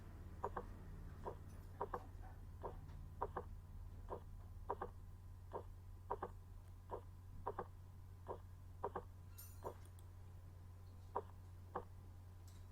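Auscultated heart sounds: a slow, regular lub-dub of short, soft thuds over a steady low hum, with a brief rustle about ten seconds in.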